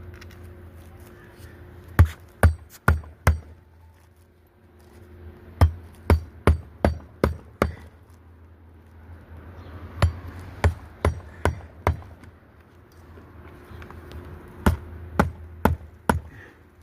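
Hand hammer driving roofing nails into asphalt shingles: four runs of sharp blows, four to six strikes each at about two a second, with short pauses between runs.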